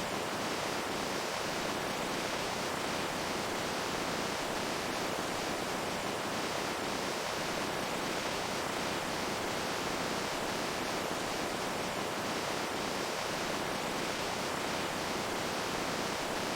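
Steady rushing of running water: an even, unchanging hiss.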